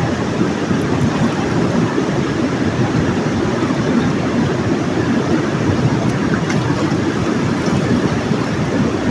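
Steady, loud rumbling noise with no distinct tones or rhythm, heaviest in the low range.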